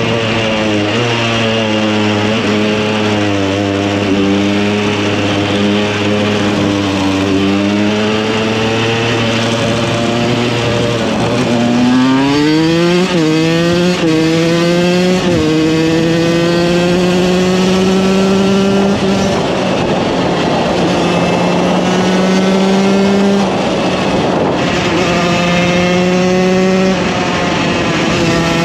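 KTM 125 EXC two-stroke single-cylinder supermoto engine under way. It runs at moderate, slightly wavering revs. About halfway it accelerates hard through three quick upshifts, then holds steady higher revs with three brief throttle lifts.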